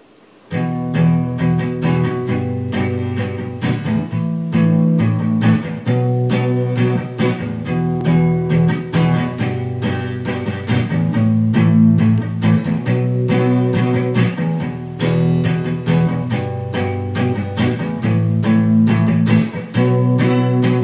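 Electric guitar playing a song's instrumental intro: picked chords in a steady rhythm, starting about half a second in.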